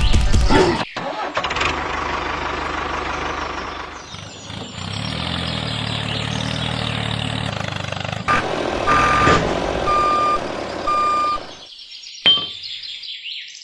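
A motor or engine running, with short repeated beeps over it near the end.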